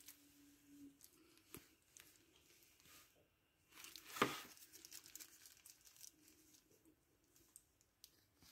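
Faint crinkling of thin plastic food-prep gloves and a few soft clicks as hands handle and fold a filled round of dough, with one brief louder rustle about four seconds in.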